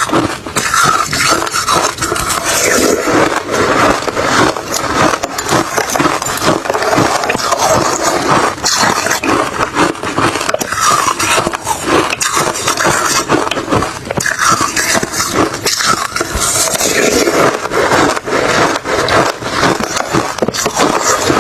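Refrozen crushed ice and shaved ice being chewed: dense, continuous crunching made of many sharp cracks.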